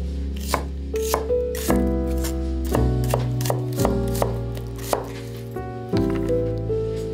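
Chef's knife slicing an onion on a wooden cutting board: irregular crisp knife strikes through the onion onto the board, about two or three a second, over soft background music.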